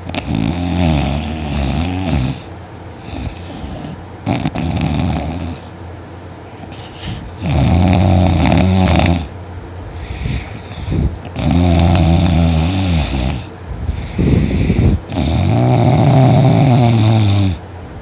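A person in deep sleep snoring very loudly. Each breath brings a low, growling snore of one to three seconds, about every three to four seconds.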